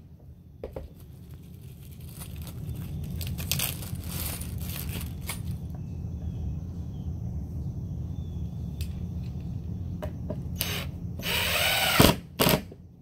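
A Ryobi cordless impact driver spins up and drives a screw into wood about eleven seconds in, followed by a second short burst. Before that there is only a low steady background rumble with a few faint clicks from handling screws and the box.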